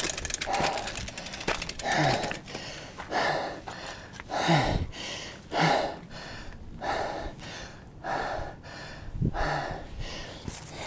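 Mountain biker breathing hard after a steep climb: heavy, noisy breaths in and out, about one a second. A fast fine ticking runs through the first couple of seconds.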